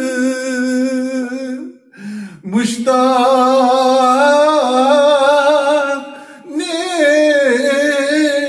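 A man singing a Kashmiri naat unaccompanied, drawing out long, wavering held notes. There is a short breath pause about two seconds in and a brief dip about six seconds in.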